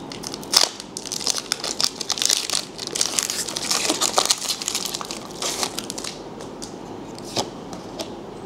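Foil wrapper of a Pokémon trading card booster pack being torn open and pulled apart by hand, crinkling and crackling with a few sharp snaps. The crinkling thins out near the end once the cards are out.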